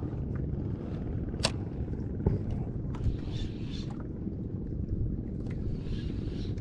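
Steady low wind rumble on the microphone over open water aboard a small outrigger canoe, with a sharp click about a second and a half in and a knock just after two seconds.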